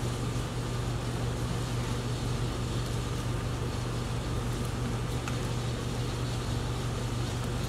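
Steady low mechanical hum of room machinery, unchanging throughout, with a faint hiss above it.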